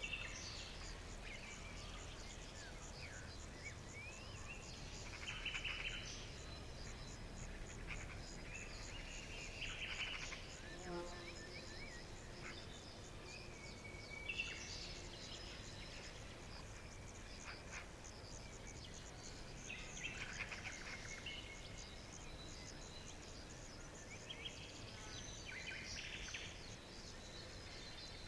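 Forest ambience: an insect trills steadily in rapid, even pulses while birds sing short phrases of quick notes every few seconds.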